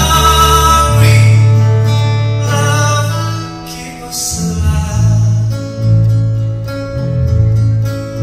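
A band playing a soft-rock song live on acoustic guitar, bass and a singing voice, the notes held and ringing over a steady bass line.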